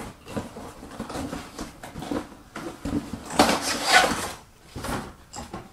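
Handling and rummaging through the contents and packaging of a boxed magic set: scattered knocks and clicks with rustling and scraping, loudest about three and a half to four seconds in.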